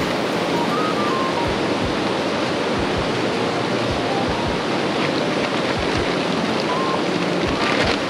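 Steady rush of a fast-flowing stream, with short low buffets of wind on the microphone. Near the end, a plastic groundsheet rustles as it is unfolded.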